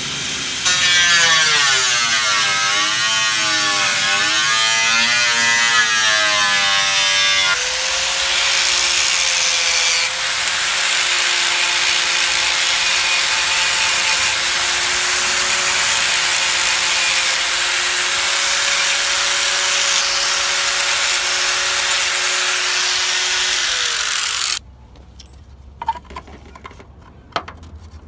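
Corded angle grinder with a cutoff disc cutting through a car's steel front fender, a loud grinding hiss over the motor's whine. The whine wavers in the first several seconds as the disc bites, then holds steady. The grinder stops about 24 seconds in, leaving a few light clicks.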